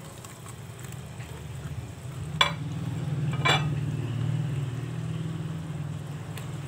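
Fried milkfish pieces being stirred into simmering tomato sauce in a metal pan with a spatula, under a steady low hum. The spatula knocks sharply on the pan twice, about two and a half and three and a half seconds in.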